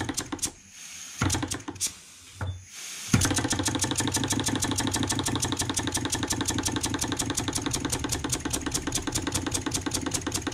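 Model wobbler (oscillating-cylinder) engine opened up for top speed. It gives a few uneven bursts, then about three seconds in it settles into a fast, even, rapid chuffing.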